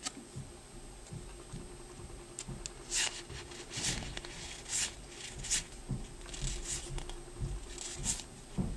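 Yu-Gi-Oh! trading cards being slid off a stack and fanned out by hand: soft swishes of card sliding against card, about one a second from roughly three seconds in.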